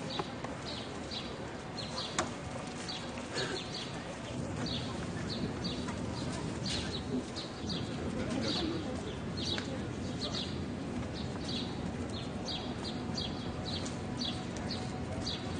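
A small bird chirping over and over, two or three short high chirps a second, over a steady low background hum.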